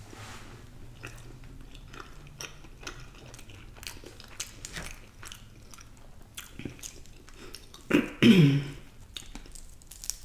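Close-up eating sounds: chewing, with many small sharp mouth clicks and smacks. About eight seconds in, the eater makes one short, loud sound with her voice, falling in pitch.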